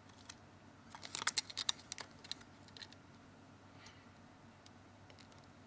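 Faint small clicks and taps from handling a replacement smartphone screen assembly against the opened phone, with a quick cluster of them about a second in.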